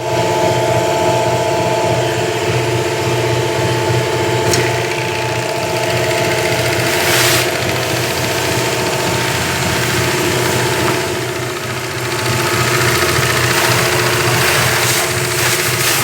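Electric-motor-driven three-piston high-pressure pump running steadily, a constant machine hum with some hiss, dipping slightly about twelve seconds in.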